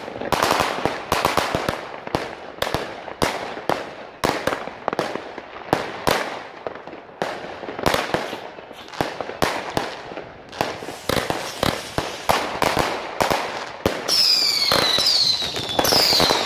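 Aerial fireworks going off in rapid succession: a dense run of sharp bangs and crackling bursts. In the last couple of seconds, several whistling fireworks add falling whistles over the bangs.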